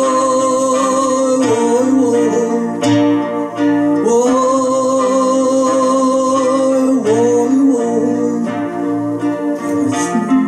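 A man singing two long held notes, each about three seconds, over his own strummed nylon-string classical guitar.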